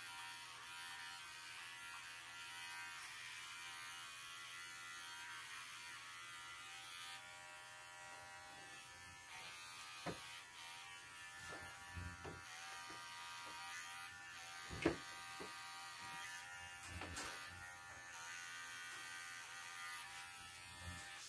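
Arco electric pet clipper running with a steady buzz as it shaves the coat off a standard poodle's hind leg. A few brief knocks come through, the loudest about fifteen seconds in.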